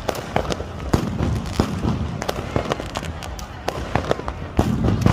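Fireworks and firecrackers going off: many sharp, irregular bangs and pops, several a second, over a low continuous rumble.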